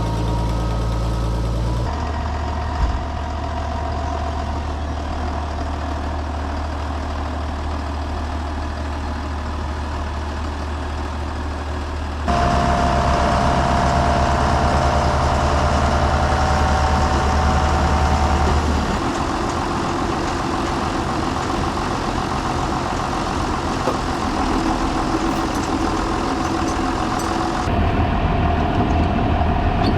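Heavy farm machinery engines running steadily. The engine sound changes abruptly several times, as the footage cuts between machines, and grows louder about twelve seconds in.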